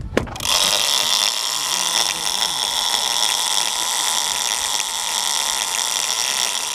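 Big-game conventional fishing reel's drag singing steadily as a hooked blue shark runs and pulls line off against it; it starts suddenly about half a second in.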